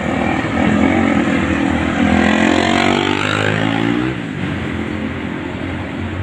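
A road vehicle's engine passing close, rising in pitch as it accelerates, then dropping away about four seconds in, over steady traffic noise.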